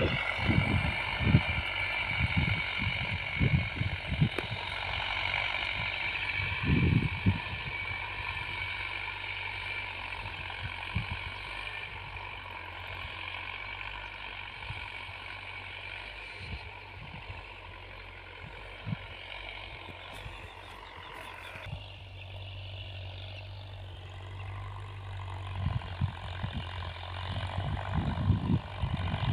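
John Deere tractor's diesel engine running steadily under load as it works a field far off, with gusts of wind buffeting the microphone.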